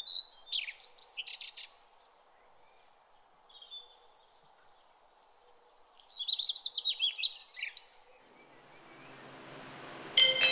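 Birds chirping and calling in two short bouts of quick high chirps, with a faint outdoor background between them. Music comes in near the end.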